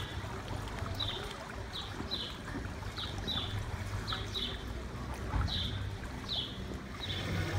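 A bird chirping over and over: short falling chirps, mostly in pairs, about once a second, over a steady low hum.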